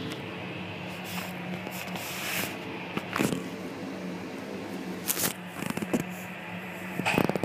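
Rustling and knocking of a phone being handled against fabric and a shag rug, over a steady low hum. The knocks come in scattered clusters, about three seconds in, about five seconds in, and loudest near the end.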